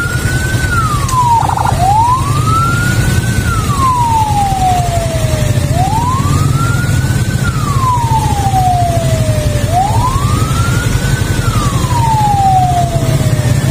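Ambulance siren on a slow wail: a single tone rises quickly, then falls slowly, about once every four seconds, over a steady low rumble.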